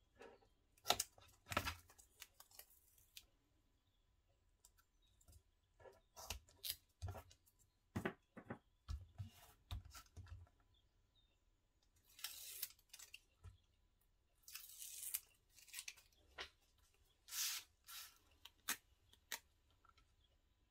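Double-sided tape being unrolled, cut with scissors and its backing peeled, with paper handled and pressed down onto card: short, scattered rips, snips and taps, with a few longer rustles in the second half.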